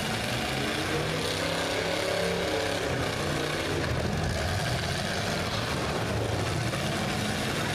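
Demolition derby cars' engines running in the arena, with one engine revving up and back down about a second in, over a steady rumble and hiss.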